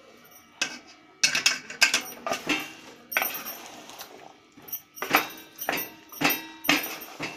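Wooden spoon stirring boiled chickpeas in an aluminium pot, knocking and scraping against the pot in a string of sharp strokes, about two a second near the end.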